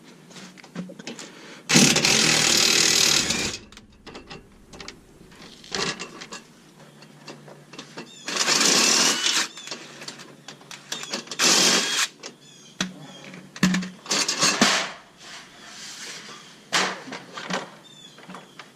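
A power tool with an 8 mm socket running in short spurts, backing out the bolts that hold a pickup's underbody shield; four runs, the first two the longest at about a second and a half to two seconds, with small clinks and knocks of the bolts and shield in between.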